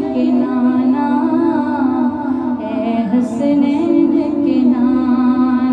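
Naat singing: a solo voice drawing out long, ornamented notes with a wavering vibrato, over a steady low drone.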